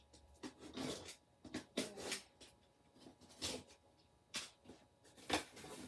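Product packaging being handled and rummaged through: a string of short, irregular rustles and scrapes.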